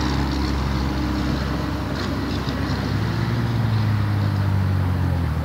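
An engine running steadily with a low hum, its pitch stepping up about three seconds in and dropping back shortly before the end, over a hiss of wind.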